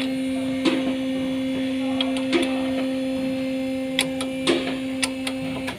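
Steady electric machine hum that cuts off abruptly near the end, with scattered sharp metallic clicks and taps from work on the wheel hub.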